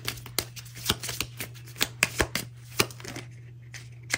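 A deck of tarot cards being shuffled and handled, with quick irregular snaps and flicks of the cards that thin out after about three seconds.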